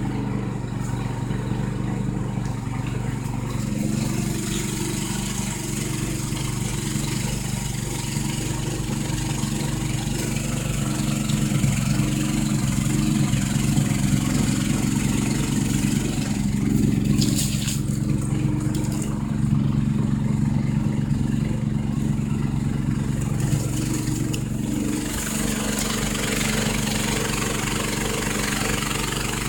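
Snowblower engine running steadily at a constant speed, a little louder through the middle.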